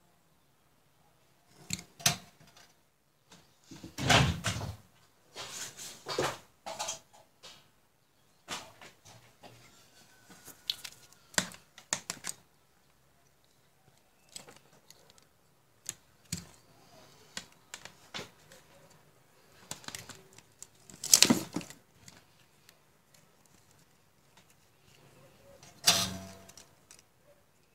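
Hands moving wires and soldering tools about on a hard floor: scattered clicks, knocks and short rustles at an irregular pace, with three louder bumps spread through.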